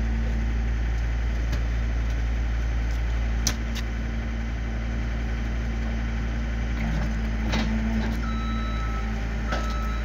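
John Deere skid steer's diesel engine idling steadily, with a single clank about three and a half seconds in. Near the end a reversing alarm starts beeping about once a second.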